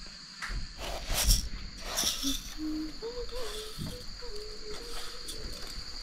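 Steady high-pitched trill of insects, with two brief rustling noises about one and two seconds in and a low wavering tone held for a couple of seconds from about the middle.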